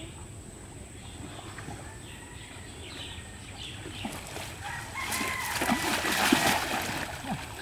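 Water splashing as a man wades into a pond and throws a cast net, the net landing on the water; the splashing is loudest between about five and seven seconds in. A rooster crows in the background.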